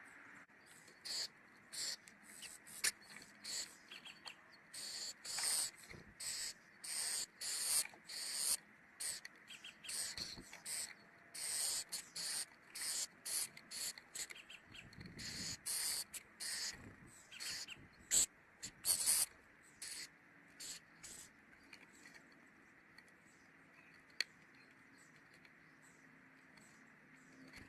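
A quick, irregular run of short, hissy scratching or rustling sounds, several a second, stopping about twenty seconds in.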